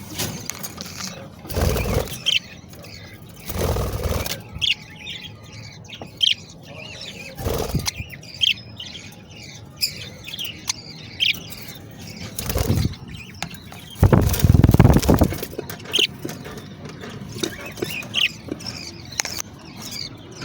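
Budgerigar chicks chirping, many short high squeaky calls throughout. Several louder rustling noises come between them, the longest about two-thirds of the way in.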